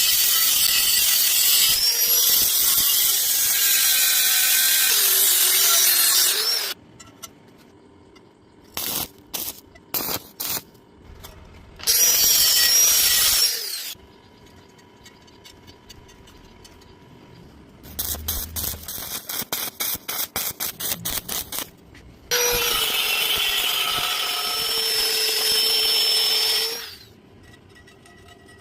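Three bursts of an angle grinder on steel plate, the first and last several seconds long and the middle one brief, each with a wavering whine. Between the bursts come a few separate clicks and a quick run of rapid taps.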